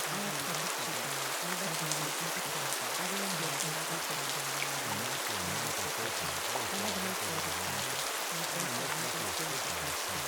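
Rain sound effect: steady rain patter on a surface. Beneath it runs a low, bending, voice-like murmur, the buried subliminal affirmations.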